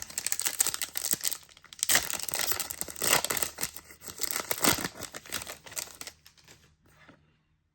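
A trading card pack's wrapper being torn open and crinkled by hand: a dense crackling rustle that thins out and stops near the end.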